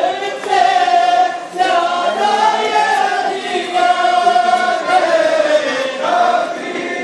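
A crowd of men chanting a noha, a Shia mourning lament, together in long drawn-out lines sung on one shared melody.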